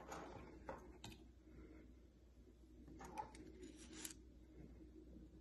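Faint handling noises of the thermocouple's flat pin connector: a few light clicks and rustles of small plastic and metal parts about a second in and again around three to four seconds in, over a low room hum.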